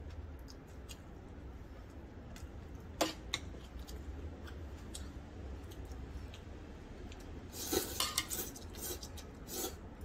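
Metal chopsticks clicking against a metal ramyeon pot and each other while instant noodles are lifted out, with one sharp clink about three seconds in. Near the end, a few loud slurps of noodles.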